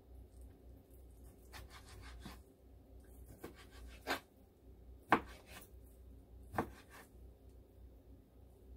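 Kitchen knife slicing raw chicken breast on a plastic cutting board: soft scraping cuts, then three sharp taps of the blade on the board, about four, five and six and a half seconds in, the middle one loudest.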